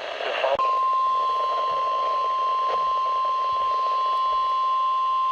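NOAA Weather Radio warning alarm tone: one steady, loud, high beep near 1 kHz, starting about half a second in over radio hiss. The tone marks the start of a new warning broadcast.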